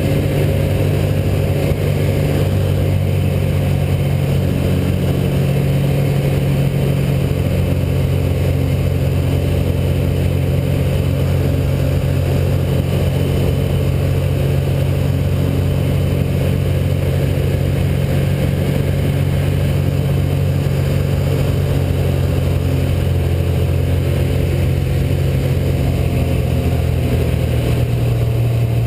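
Rotax 912 flat-four aircraft engine, fed by an Aeroinjector, running steadily in flight with its propeller, heard from inside the cockpit. It drones at a steady pitch, which shifts slightly a few seconds in and again near the end.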